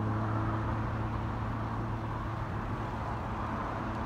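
Small light helicopter running on the ground, its engine and rotors giving a steady low drone over a rushing hiss.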